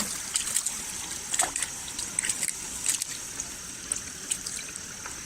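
River water running, with trickling and sloshing and a few small splashes.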